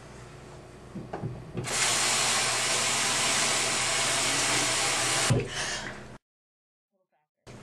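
Bathroom sink faucet turned on with a couple of small knocks, water running into the basin steadily for about three and a half seconds, then cut off with a thump.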